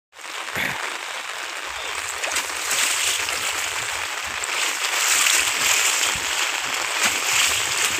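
Heavy rain hissing steadily onto a flat concrete roof and the water pooled on it, with splashes as bare feet jump and stamp in the shallow water.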